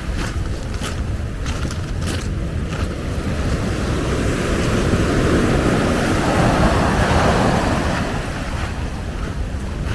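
Wind rumbling on the microphone over waves washing on the beach; a broad rush swells up in the middle and eases off, with a few sharp clicks in the first seconds.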